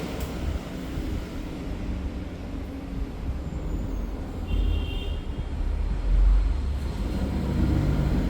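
Steady low rumble of background noise, with a brief high electronic beep about halfway through.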